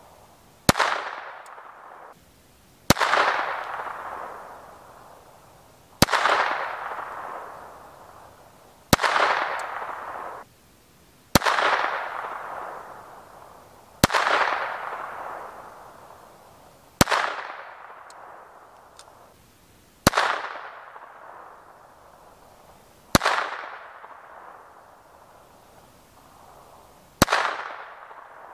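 Beretta 21A Bobcat .22 LR semi-auto pistol fired ten times in slow, aimed succession, a shot every three seconds or so, each sharp crack followed by a trailing echo.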